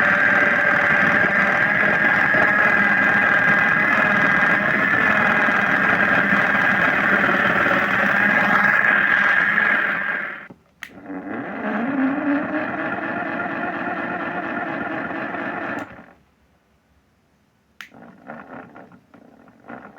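Simba washing machine running: a steady motor whine for about ten seconds, then a brief drop-out, then the motor picking up with a rising whine before stopping abruptly. After a short silence come quieter, irregular sounds of the drum turning.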